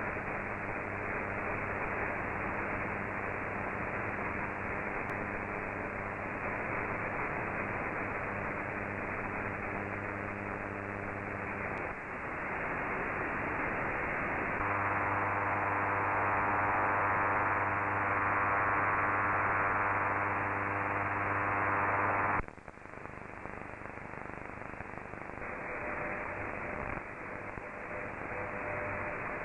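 Shortwave receiver audio in AM mode: hiss and static with a steady hum, as the software-defined radio is tuned between the standard-frequency channels. The noise changes with each retune, gets louder for several seconds, then drops sharply about 22 seconds in. Faint steady tones come in near the end.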